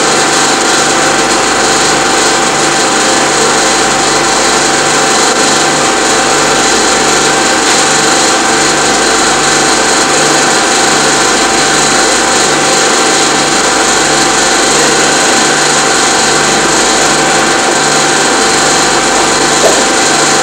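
Film projector running: a steady mechanical whir with an even, repeating low pulse underneath.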